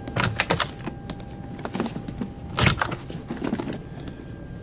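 Airliner cockpit background hum with a faint constant high tone. Over it come several short rustles and clicks of crew moving about and shifting in their seats, the loudest just under three seconds in.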